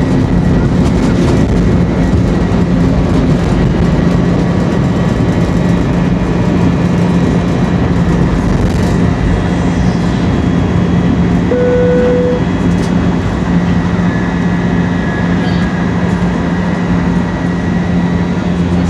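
Steady airliner cabin noise, the jet engines and cabin hum running evenly after landing, with a short steady tone about twelve seconds in.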